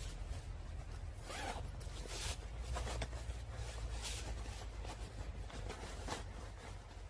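A zipper being pulled in a series of short strokes, roughly one a second and unevenly spaced.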